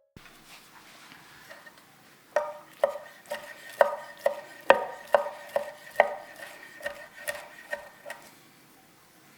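Gyuto kitchen knife chopping on a cutting board: a steady run of about fourteen strokes, a little over two a second, starting about two seconds in. Each stroke has a short ring.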